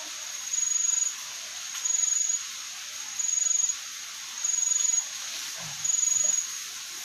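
An insect calling in regular pulses: a high, thin buzz about half a second long, repeating roughly every 1.3 s, over the steady rush of a river.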